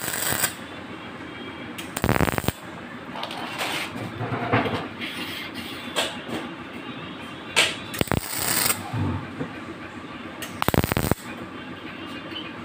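Electric arc welding on stainless steel tube: a run of short crackling bursts as the arc is struck for one tack weld after another, about four or five in all, each lasting under a second, with pauses between.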